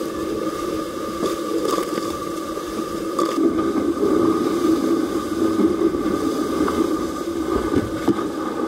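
Wind and rushing water on the deck of a VO65 racing yacht sailing fast in strong wind, a steady wash with a steady hum underneath, a little louder from about three seconds in.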